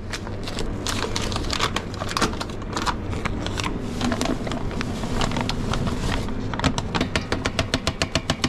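Flour bag crinkling as it is opened and tipped to pour pasta flour into a stainless steel bowl, over a steady low hum. Near the end, rapid evenly spaced ticks come in, about five a second.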